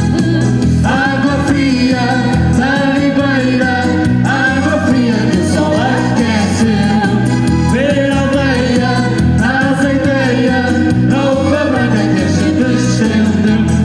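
Live band music: a lead melody line over a steady, repeating bass beat.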